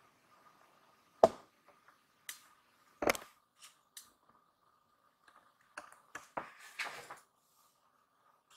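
A few sharp clicks and knocks, the loudest about a second in and another about three seconds in, with a short cluster of rustling knocks around six to seven seconds, over a faint steady high tone.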